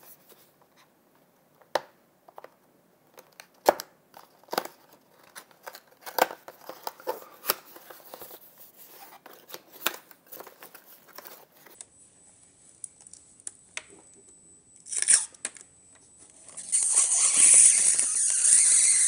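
Plastic packaging being unwrapped by hand: sharp crackles and snaps of bubble wrap and a plastic bag. Near the end comes a loud, continuous rustle as a clear plastic bag is pulled off the clock.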